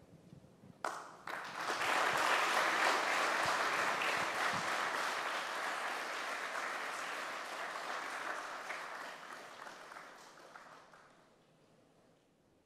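An audience applauding: the clapping starts about a second in, holds steady, then slowly dies away near the end.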